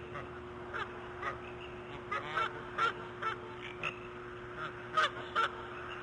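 A series of short animal calls, each a fraction of a second long, repeated at irregular intervals over a steady hum.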